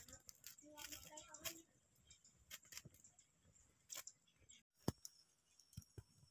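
Near silence: faint scattered crackles from a wood fire burning under a cooking pot, with a faint voice about a second in.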